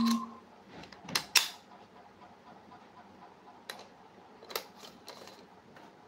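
A few sharp clicks and knocks from an inline speed-skate frame and its wheels being handled, the loudest pair about a second in and fainter ones later. An electronic tone stops just at the start.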